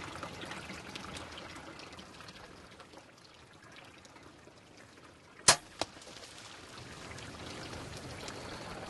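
A compound bow shot at a pronghorn antelope: one very loud sharp crack about halfway through, then a second, weaker crack about a third of a second later, over a faint steady hiss.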